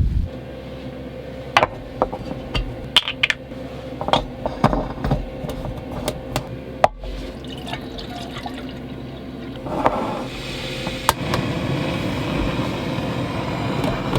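Liquid being poured, with scattered sharp clicks and knocks in a small enclosed space. A steady rushing noise rises about ten seconds in.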